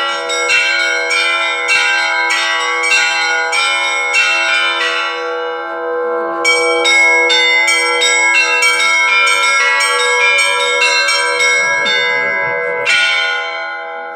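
Russian Orthodox church bells ringing (zvon): a rapid run of strikes, about two to three a second, over bells that keep ringing on. The strikes break off about five seconds in, start again a second or so later, and stop near the end.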